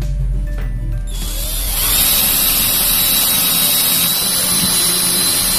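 Cordless drill boring a hole through a cabinet door panel for a handle. It starts about a second in and runs steadily with a high whine.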